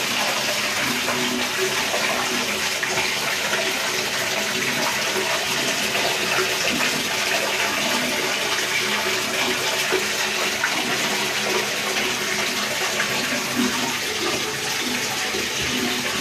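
Water running steadily in a bathtub during a dog's bath.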